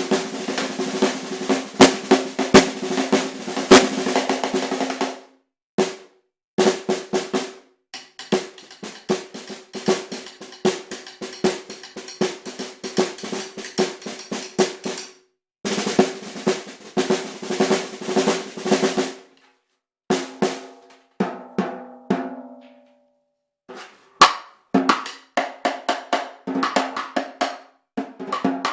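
Ludwig Black Beauty 5x14 hand-hammered brass snare drum played with sticks, muffled by a thick E-ring: rapid strokes and rolls with the snare wires buzzing. The playing stops briefly a few times, and near the middle a few separate ringing hits come before the rolls resume.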